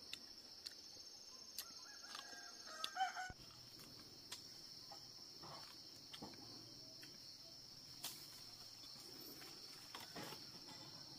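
A rooster crows once, briefly, about two to three seconds in, over a steady high chirring of crickets.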